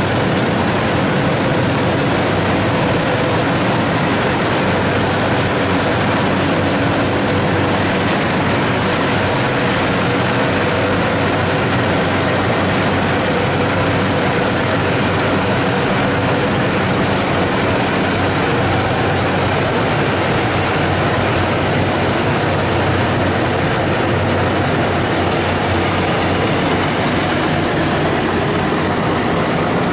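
Rice combine harvester running steadily, its engine and threshing machinery making a loud, even mechanical drone.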